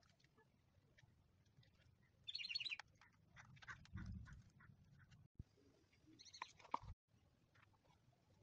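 Faint rustling, tapping and soft knocks of rolled-newspaper tubes handled on a table. Two short, high chirps come about two and a half and six and a half seconds in.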